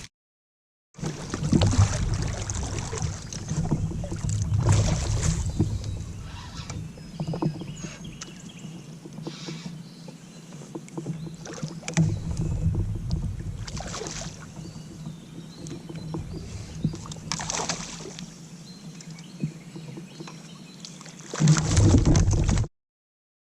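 Water sounds around a kayak on a creek: steady rushing and lapping, with a handful of louder splashy swooshes a few seconds apart.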